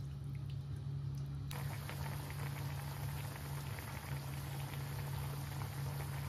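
Vegetable broth boiling hard in a wok: a steady bubbling, crackling hiss that gets much louder about a second and a half in, over a steady low hum. A metal spatula stirs through the pot at first.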